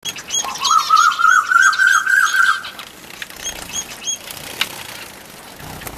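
Pet finches calling: a fast, loud run of repeated rising notes for about two seconds, followed by a few short, high chirps and a single sharp click.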